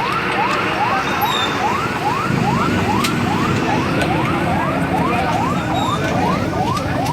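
Emergency vehicle siren in a fast yelp pattern: a rising wail repeated about two to three times a second, over a low rumble of traffic.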